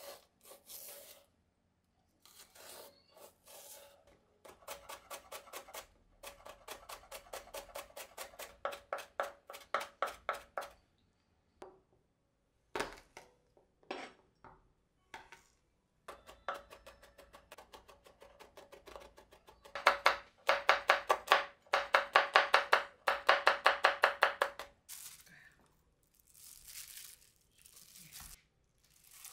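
Chef's knife chopping quickly on a wooden cutting board, about five even strokes a second, finely mincing green onion whites and then garlic cloves. It comes in runs with short pauses between, and the loudest run is near the end, followed by a soft rustle.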